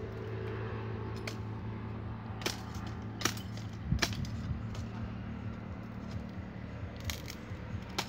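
A hand blade chopping into the dry frond bases of a date palm: a few sharp, irregular chops, the loudest about four seconds in, over a steady low hum.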